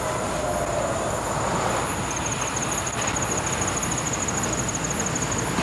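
Steady rushing outdoor noise at night, with a faint, rapid high-pitched pulsing from about two seconds in that lasts about three seconds.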